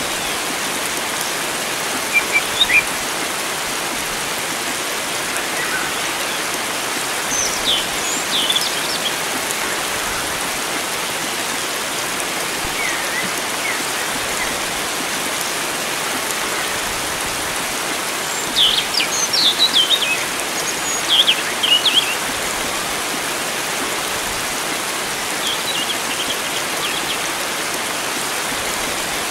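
Steady hiss of water with wild songbirds over it, giving short high chirps and trills several times. The loudest run of calls comes about two-thirds of the way through.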